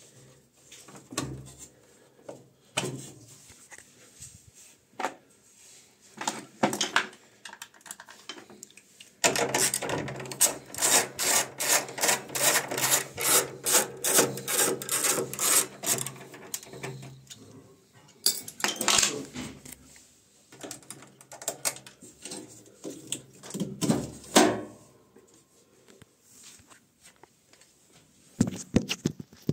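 Ratchet wrench clicking rapidly, about four or five clicks a second for several seconds in the middle, as a bolt is worked loose on the washing machine. Before and after come scattered metal knocks and clinks of tools and parts.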